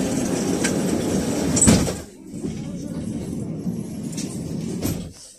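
Noise inside a 1990 KTM-5 (71-605A) tram car, with a sharp knock about one and a half seconds in. The noise breaks off about two seconds in, picks up again, and drops away shortly before the end.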